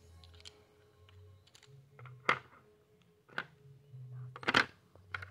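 Coloured pencils clicking against each other and against a clear plastic organizer box as they are handled and set in: a few sharp clacks, the loudest about four and a half seconds in.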